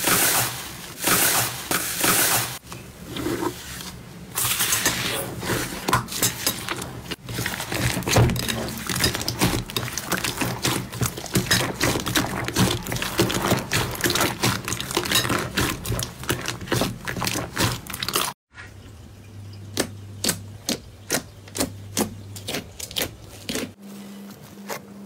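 Slime being pressed, squeezed and kneaded by hand, giving off dense crackling and popping clicks. The popping turns sparser, into separate pops, in the last part.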